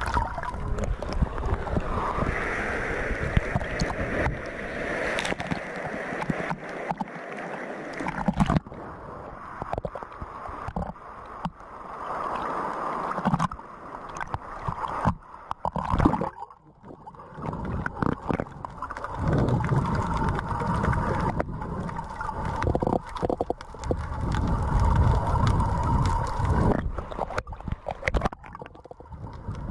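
Sea water sloshing and gurgling around a camera held at the surface, repeatedly dipped under and lifted out as small waves wash over it, in an irregular, surging wash.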